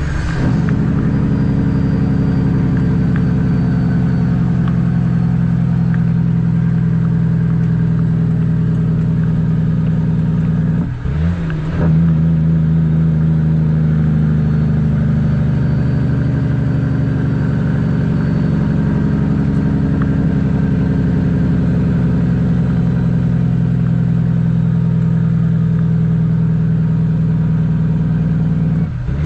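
CAT C13 inline-six diesel in a Kenworth W900B dump truck pulling steadily down the road with a load of millings. The engine note breaks off briefly about eleven seconds in and again near the end, then comes back up, like gear shifts.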